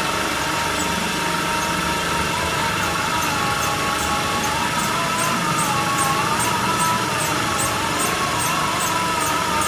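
Lightweight-brick wire-cutting machine running: a steady mechanical drone with a whine that wavers up and down in pitch. From about three seconds in there is a regular light ticking, two or three ticks a second.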